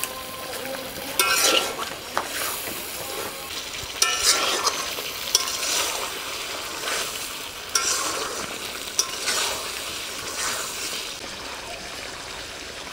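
A slotted metal spatula stirring and scraping chicken pieces around a large metal pot, with the sizzle of the meat frying in oil and spices underneath. The strokes come unevenly, every second or so, some with a short metallic clink, and die away over the last couple of seconds.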